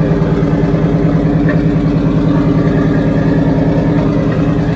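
Pickup truck engine idling steadily on a newly installed Edelbrock AVS2 carburetor, heard from inside the cab.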